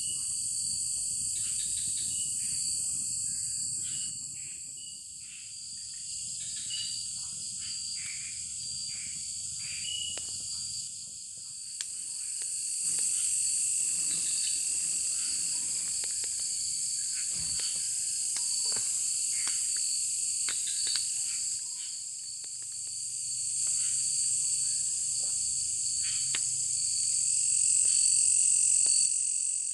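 Chorus of insects and frogs: a steady high insect drone that swells and fades in slow waves over a second, constant high insect tone, with many short frog calls scattered throughout.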